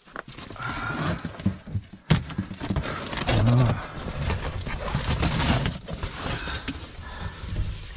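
Rustling and irregular knocks of someone moving about and handling things inside a small vehicle cab, with a low groan-like sound about three seconds in.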